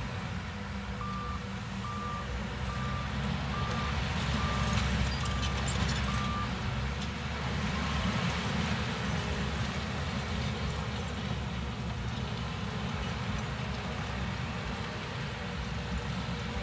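Heavy diesel construction machinery running with a steady low rumble, while a reversing alarm beeps seven times, about one beep every three-quarters of a second, stopping about six seconds in.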